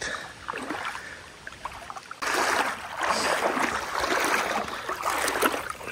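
Shallow river water rushing, an even splashing noise that becomes suddenly much louder about two seconds in.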